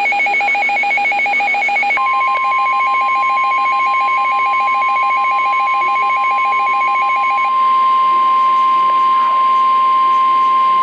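Emergency Alert System alert tones. A rapidly pulsing two-pitch warbling trill is joined about two seconds in by a steady single-pitch attention tone. The trill stops about seven and a half seconds in, leaving the steady tone.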